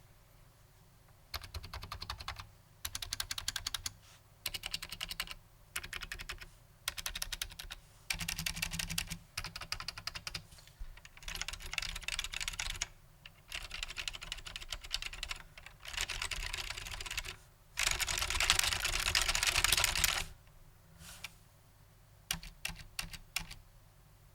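Typing on a Matias Quiet Pro mechanical keyboard, whose Alps-clone Matias Quiet Click switches give soft, muted keystroke clicks. The typing comes in quick runs of keystrokes with short pauses between them, and the longest run comes near the end.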